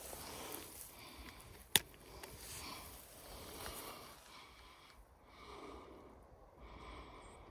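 Faint breathing and sniffing close to the microphone, with a single sharp click about two seconds in.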